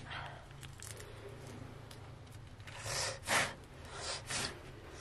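Four short breathy puffs from a person, starting about three seconds in, over a faint steady low hum.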